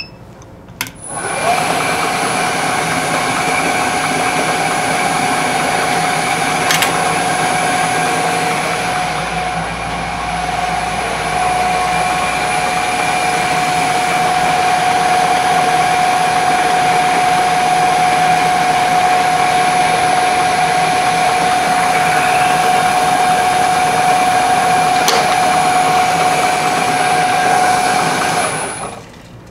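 A vertical knee mill switched on with a click about a second in: the spindle motor and drive run with a steady whine while a drill held in a collet-chuck extension bores a tap-drill hole in a metal block. The machine is switched off and winds down near the end.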